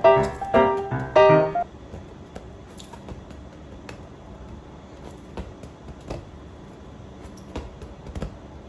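Piano music playing, cutting off suddenly about a second and a half in. After that, a quiet room with a few light taps and knocks scattered through.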